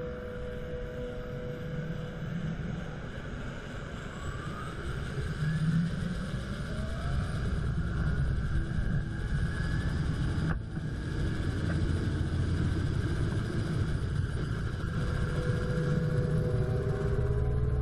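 Helicopter turbine engine running up on the ground: rising whines over a low rumble that grows louder about six seconds in, sped up to double speed.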